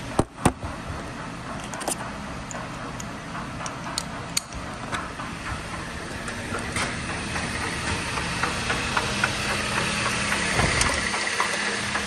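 Dodge Caliber's four-cylinder engine idling steadily, with sharp metal clinks of sockets and tools being handled in a toolbox drawer, the loudest just after the start.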